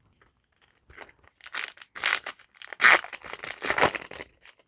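A foil trading-card booster pack being torn open and its wrapper crinkled: a run of rustling rips starting about a second in, the loudest near the middle.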